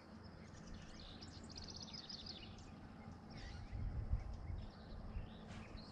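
Faint bird calls: a quick run of short high chirps about two seconds in and a few scattered calls after, over a low rumble that swells briefly near the middle.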